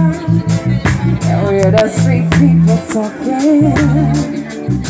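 Live reggae band playing, with a woman singing into a microphone over a steady bass line, drums and keyboard.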